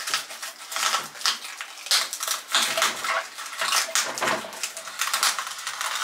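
Plastic wrapping crinkling and crackling in a dense, continuous run as it is handled and cut with scissors in a refrigerator drawer.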